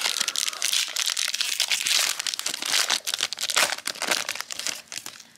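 Foil wrapper of a Dragon Ball Super Card Game booster pack crinkling as it is worked open and the stack of cards is slid out. A dense run of crisp crackling that thins out near the end.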